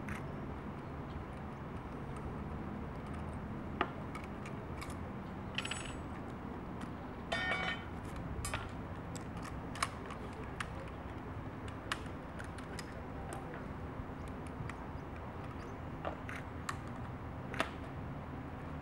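Scattered sharp metallic clicks and clacks of AK-103 rifle parts being handled and fitted together, with two short rattles near the middle, over a steady low background rumble.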